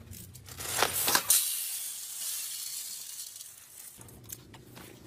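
A few sharp clicks, then dried chickpeas pour from a sack into a steel bowl with a loud hissing rattle that fades out after about two seconds.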